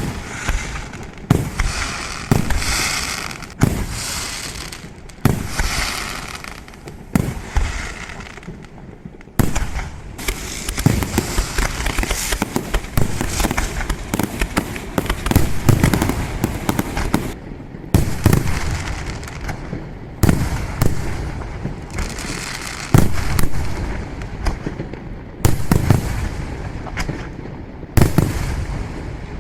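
Fireworks display: a rapid run of bangs from bursting shells, with crackling in the first several seconds, then denser, deeper booms.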